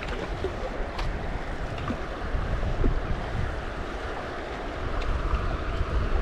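Wind rumbling on the action camera's microphone over the wash of water around a moving canoe, with a few faint knocks.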